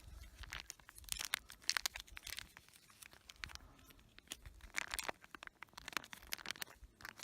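Irregular crinkling and rustling with many small clicks and taps, the sound of something being handled, with no regular rhythm.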